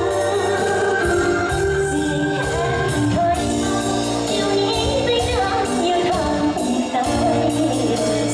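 A woman singing into a handheld microphone over amplified backing music with a bass line and a steady beat.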